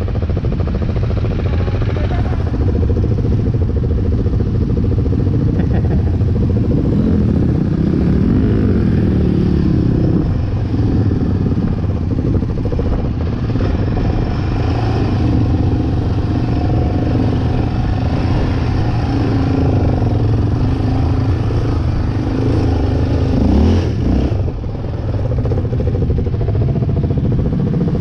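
Off-road vehicle engine running under load, revs rising and falling as it works along a rough trail, with rattling from the vehicle.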